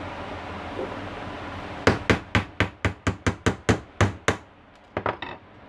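Hand tool striking a plastic miniature circuit breaker (MCB) case on a wooden board: about a dozen quick, sharp knocks starting about two seconds in, four or five a second, then two or three lighter clicks near the end.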